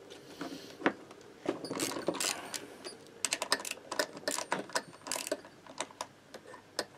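Small socket ratchet clicking in quick runs as it loosens the crankcase bolts of a moped engine, with some handling clatter of metal on the bench.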